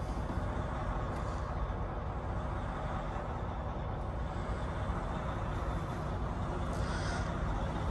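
Steady low rumble of an idling diesel semi truck, heard from inside the cab.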